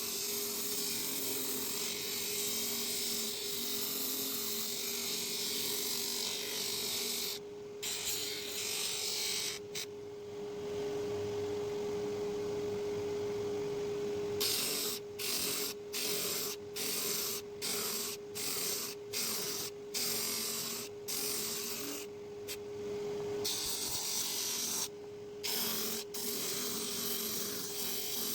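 A wooden workpiece being abraded by a running power tool: a steady motor tone under a rasping hiss. The hiss breaks off and returns again and again, with a run of quick strokes about twice a second through the middle.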